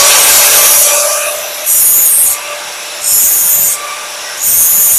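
Electric grinder running with a steady motor hum while the end of a steel crank pin is pressed against the wheel in short passes. A long grinding hiss at first, then about one short pass every second and a half, putting a chamfered cutting edge on the pin before it is pressed into the crank.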